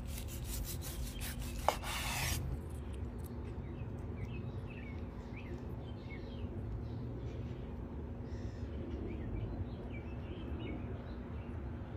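A knife sawing through a crusty grilled steak pinwheel in quick rasping strokes, with one sharp click about a second and a half in, over a steady low hum. After about two and a half seconds the cutting stops and only faint small sounds stay over the hum.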